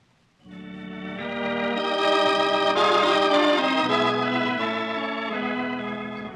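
Organ music bridge: held chords that start about half a second in, swell and then slowly fade, marking a scene change in a radio drama.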